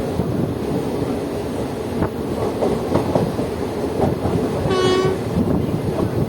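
Passenger express train running with a steady rumble of wheels on track and scattered clicks over the rail joints. About five seconds in comes one short horn blast, about half a second long.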